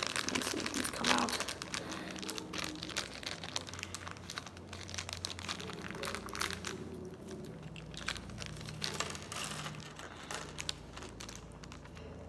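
Clear plastic bag of LEGO pieces crinkling and crackling irregularly as it is handled and pulled open, partly torn with the teeth.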